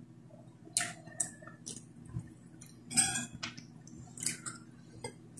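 Quiet eating sounds at the table: a handful of short, irregular smacks and clicks from chewing and from a spoon against a plate.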